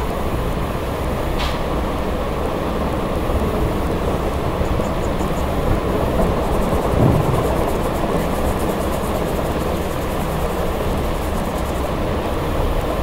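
Steady, fairly loud low-pitched background noise, with a short click about one and a half seconds in and a brief low swell about seven seconds in.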